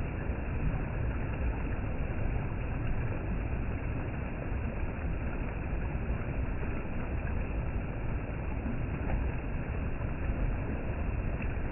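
Steady rush of Tumalo Creek's water, an even, unbroken noise heavy in the low end.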